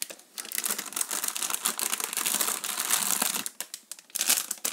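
Clear plastic bags around model-kit runners crinkling as they are handled: a dense crackle for about three seconds, then a shorter burst near the end.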